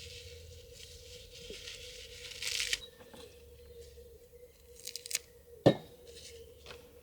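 Rustling and tearing handling sounds, with a louder tear about two and a half seconds in and a single sharp knock near the end, over a faint steady hum.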